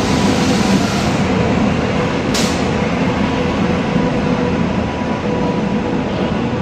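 WAP7 electric locomotive and the coaches behind it rolling past along a station platform: a steady rumble of wheels on rail with a faint steady hum, and a brief hiss about two and a half seconds in.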